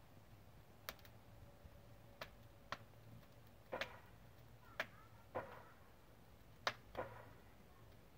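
Wood burning in an open fireplace, crackling: about eight sharp pops at irregular intervals over a faint low hum.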